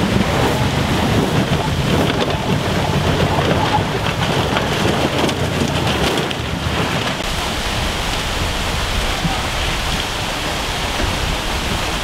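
Water rushing and splashing around a Range Rover Sport as it wades through deep river water, its wheels churning up spray. The noise is steady, with a heavy low rumble.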